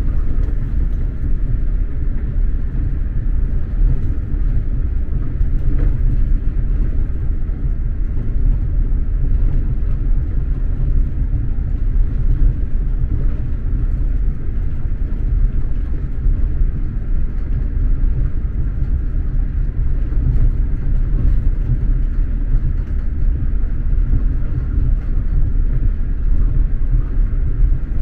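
SJ X2000 high-speed train running steadily, heard from inside the passenger carriage as a constant low rumble of wheels on rail.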